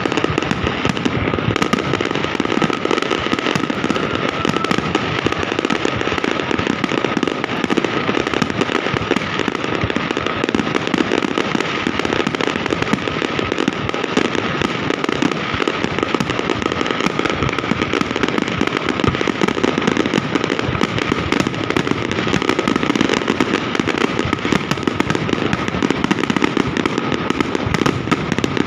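Fireworks display going off in a dense, continuous barrage of overlapping bangs and crackles, with no break.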